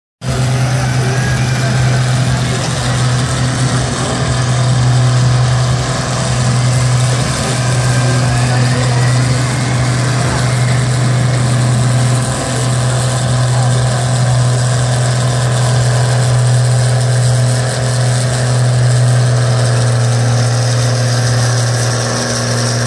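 Tractor diesel engines running at idle, a steady low drone, with a voice over a loudspeaker faintly behind it.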